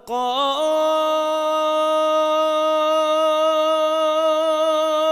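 A solo singer holding one long sung note of Arabic religious chant. The voice slides up into the note twice in the first half-second, then holds it steady with a slight waver.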